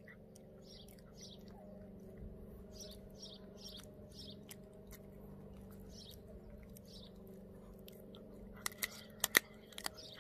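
A Pomeranian chewing a raw duck foot, about two or three chews a second, with a few sharp crunches near the end as its teeth work through the bone and skin.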